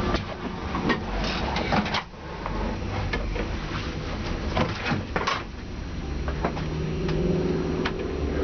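Race car engine idling, heard from inside the stripped, caged cabin, with a scattering of sharp clicks and knocks over it.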